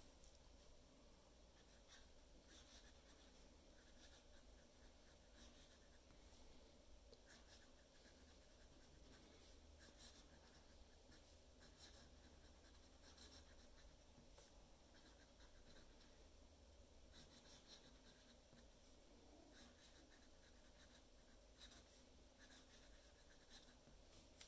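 Fine steel nib of a Lamy Studio LX fountain pen faintly scratching across paper while writing cursive, in many short strokes.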